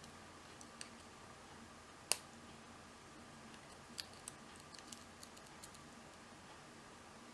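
Small metallic clicks of a lock pick and tension wrench working the pins of a 16-pin PAPAIZ cruciform padlock: one sharper click about two seconds in, then a scatter of lighter ticks between about four and six seconds.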